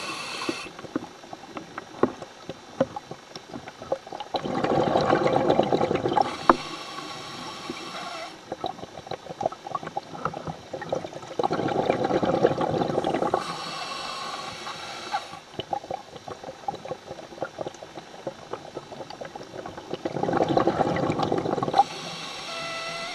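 Scuba diver breathing through a regulator underwater: three breaths, each a rush of exhaled bubbles lasting about two seconds, followed by the higher hiss of the next inhalation, with faint crackling in between.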